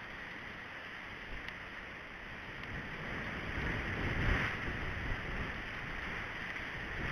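Wind on an outdoor camera microphone: a steady hiss with an uneven low rumble, swelling about four seconds in.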